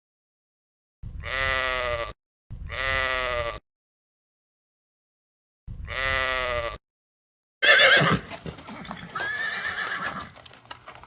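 A bleating farm animal calls three times, each bleat about a second long with dead silence between. About two-thirds in, a different animal recording cuts in with a sudden loud start and a held, pitched call.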